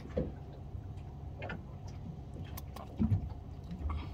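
A steady low hum, with a few faint clicks and rustles as monofilament fishing line and hooks are handled.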